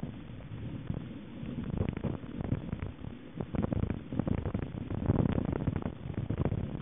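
Mountain bike ridden over a rough dirt trail, picked up by a camera strapped to the handlebars: a low rumble with constant irregular rattling and knocking as the bike jolts over bumps.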